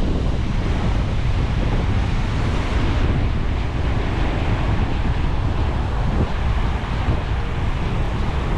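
Strong wind buffeting the microphone with a low rumble, over surf breaking on the shore, as a typhoon approaches.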